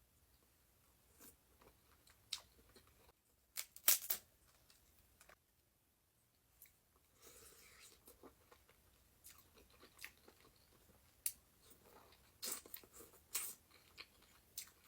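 Close-up eating of a seafood boil: chewing with irregular sharp clicks and crunches, loudest about four seconds in and again in a cluster near the end.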